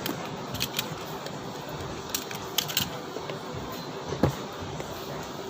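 Scattered light clicks and taps of small hard objects being handled, the loudest about four seconds in, over a steady background hiss.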